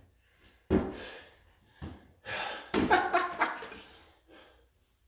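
A man's heavy breaths and short wordless vocal sounds, three or four separate bursts.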